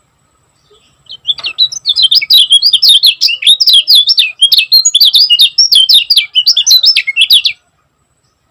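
Kecial kuning white-eye singing a fast, tightly packed run of quick chirping notes. The song starts about a second in and stops abruptly near the end.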